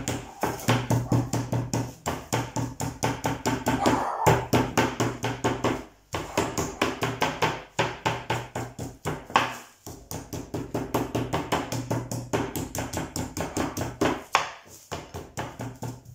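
A mortar pestle pounding a chicken breast fillet under plastic cling film on a wooden chopping board, to flatten and tenderise it. Rapid strikes come about four to five a second, with a few short pauses.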